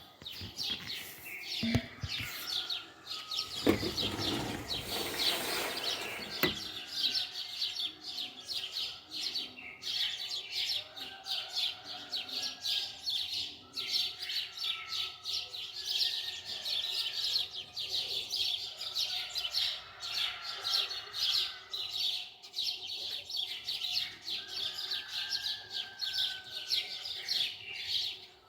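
Small birds chirping and singing continuously in rapid, high notes, with a brief burst of noise from about four to six seconds in.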